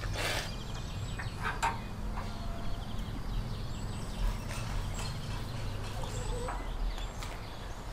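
Outdoor yard ambience: small birds chirping over a steady low hum, with a few light knocks and clinks in the first two seconds.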